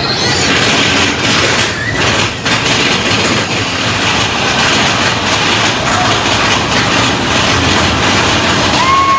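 Mine-train roller coaster cars running along the track, a loud steady rattle and rumble heard from a rider's seat. A steady high tone starts near the end and holds.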